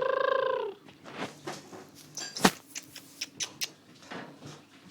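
Domestic cat giving one loud meow that rises and falls in pitch, followed by scattered clicks and knocks, with one sharp knock about halfway through.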